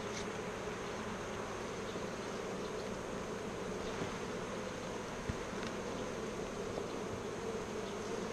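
A colony of honeybees buzzing steadily around an open hive, with a few faint clicks.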